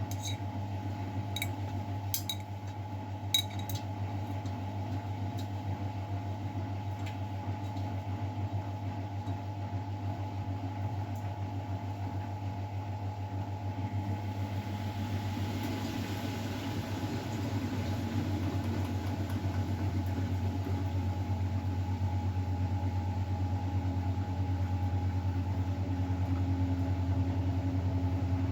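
Miele Novotronic W912 washing machine running with a steady low motor hum and a few light clicks in the first few seconds; from about halfway through the sound slowly builds and rises in pitch as the drum speeds up.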